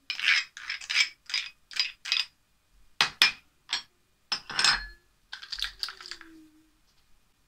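Plastic measuring spoons and a plastic measuring cup clattering as they are handled and set down: a quick run of rattling clacks, then several separate sharp knocks and a last short clatter.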